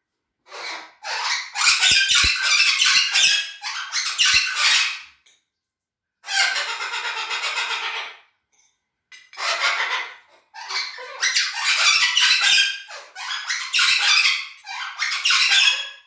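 Cuban amazon parrots squawking in loud, harsh bursts, with a longer drawn-out call about six seconds in and a run of squawks after it.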